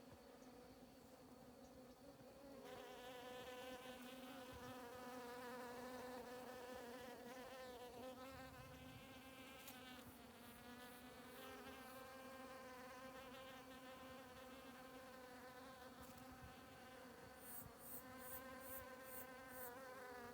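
Many bees buzzing faintly as they forage on flowering grass, a hum that wavers in pitch and grows louder about two and a half seconds in. Near the end, a quick run of about six short, high ticks.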